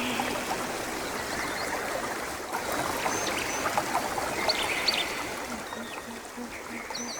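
Running water like a small stream, with short bird chirps over it, slowly growing quieter. A soft pulsing low note repeats at the start and again through the second half.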